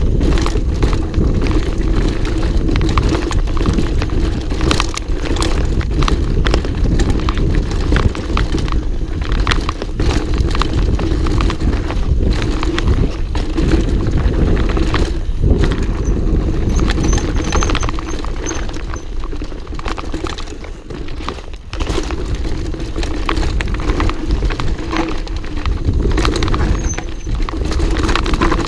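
Mountain bike descending a rough dirt trail: a constant rattle and clatter of the bike over roots and stones, over steady wind rumble on the camera microphone.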